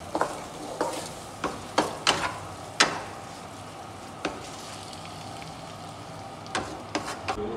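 Chow mein noodles and vegetables sizzling steadily in a frying pan while a wooden spatula stirs them, with irregular sharp knocks and scrapes of the spatula against the pan.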